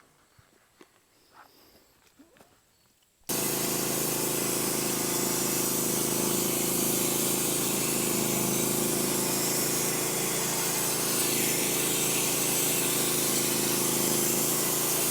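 Norwood HD36v2 bandsaw sawmill running through a cut in an oak log: engine hum under a loud, steady hiss of the band blade in the wood. It comes in suddenly about three seconds in, after near quiet, and holds an even level.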